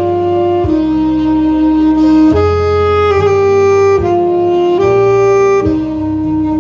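Saxophone playing a slow hymn melody in long held notes, changing pitch about once a second, over a low accompaniment.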